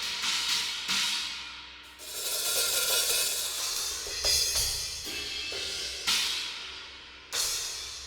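Arborea Dragon series cymbals struck one at a time, each hit left to ring out in a bright shimmering wash that slowly dies away. There are about five or six strikes.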